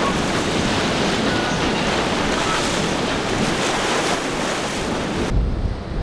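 Rushing, hissing water from a fast powerboat's wake and spray, with no clear engine note. About five seconds in it gives way to low wind buffeting on the microphone.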